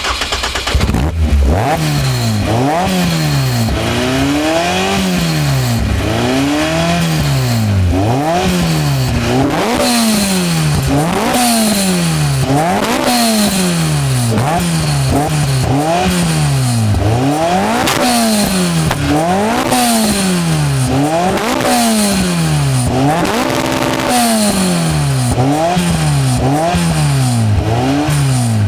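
Caterham CSR's 2.3-litre four-cylinder engine catching on start-up, then revved repeatedly in free rev, its pitch rising and falling about every two seconds. About two-thirds of the way through it is held briefly at a steady speed.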